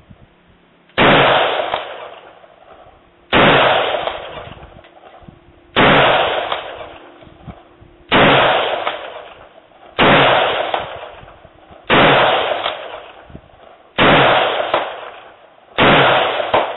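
Eight semi-automatic rifle shots fired at a steady pace about two seconds apart, each followed by a trailing echo.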